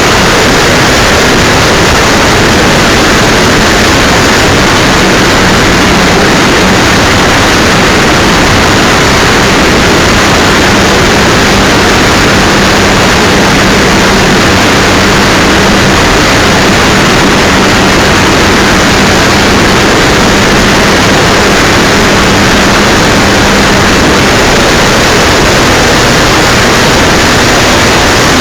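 Loud, steady rushing noise of wind buffeting the microphone, with a faint steady hum underneath through the middle stretch.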